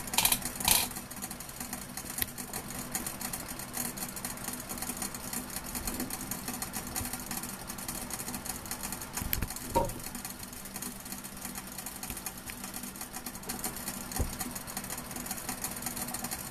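Steam distiller running: a steady fast rattle over a low hum, with two brief knocks just after the start and another about ten seconds in.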